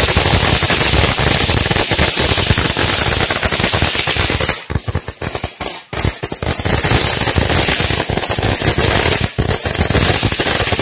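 A long string of about 1,500 firecrackers going off in a rapid, continuous chain of bangs. The chain thins to a few scattered bangs with short gaps for about a second in the middle, then picks up densely again.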